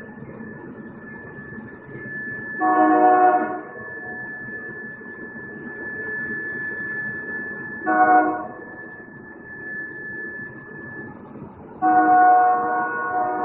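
Train horn sounding three chord-like blasts, the second short and the last held longest, over a steady thin high-pitched whine and low background rumble.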